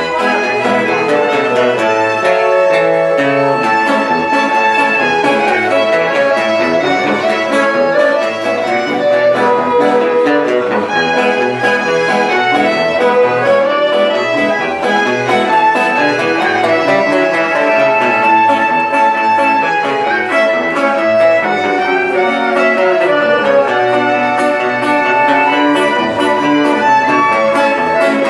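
Live band playing music for a dance, melody instruments carrying a continuous tune at a steady, loud level.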